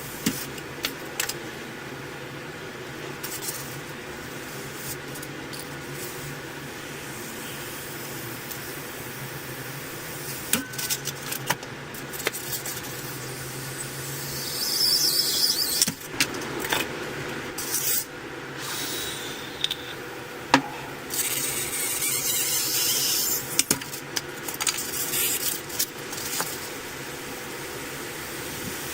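Hot-wire foam cutter slicing through polystyrene foam, the foam squeaking in uneven stretches as the heated wire passes through, with scattered clicks. The squeaking is loudest about halfway through and again a few seconds later.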